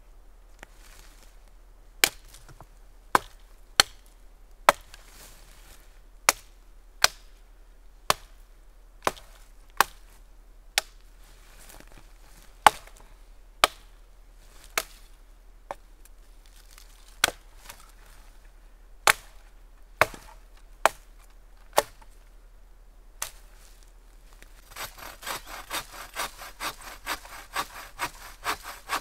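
Dry dead pine branches snapping off a fallen trunk, one sharp crack about every second, around twenty in all. Near the end a bow saw starts cutting the trunk with quick, even back-and-forth strokes.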